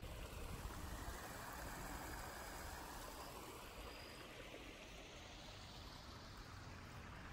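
Shallow water running steadily in a concrete drainage channel, a little louder in the first couple of seconds.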